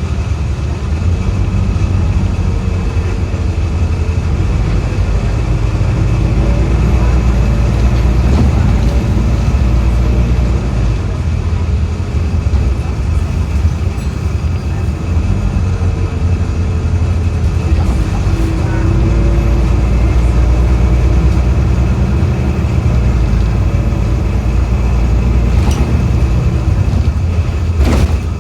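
Optare Solo single-deck bus heard from inside while under way: a steady low engine and road rumble that swells twice as the bus pulls, with faint wavering whine tones and a thin high steady tone above it. Two sharp knocks near the end.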